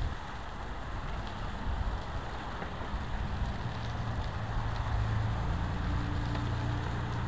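Wind noise on the microphone over tyres rolling on a gravel path during a ride, with a low steady hum coming up about four seconds in.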